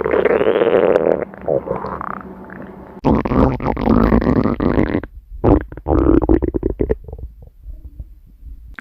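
A person's stomach growling: long gurgling rumbles with the pitch sliding up and down, then a string of short gurgles about halfway through that fade to faint gurgles near the end.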